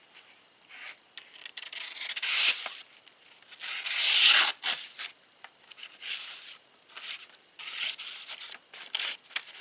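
A dull folding-knife blade slicing through a sheet of paper in a series of strokes, tearing as much as cutting, with paper rustling. The longest, loudest strokes come about two and four seconds in, with shorter ones after.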